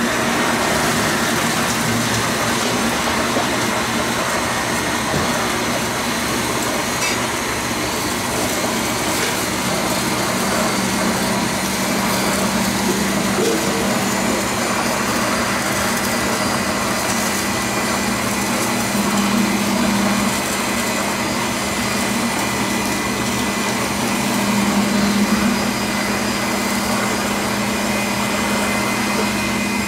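Gas blowtorch running with a steady, loud rushing hiss while searing salmon nigiri, over a low steady hum.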